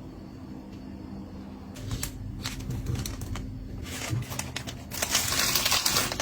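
Items and packaging being handled: a run of light clicks and knocks, then from about five seconds in a louder, dense crinkling rustle, over a steady low hum.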